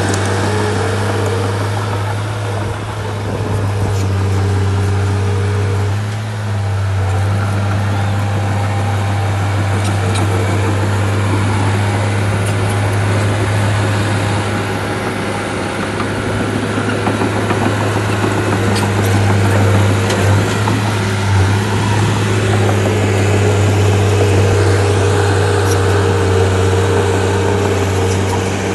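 Heavy earthmoving machine's diesel engine running steadily, a little louder for a while in the second half.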